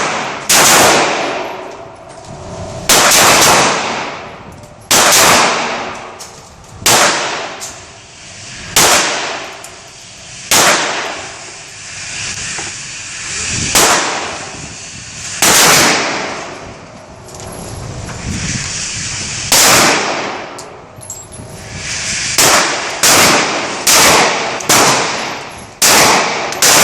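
Gunshots at a shooting range, each a sharp crack with a long echoing tail: single shots every couple of seconds, then quicker runs of shots in the last few seconds.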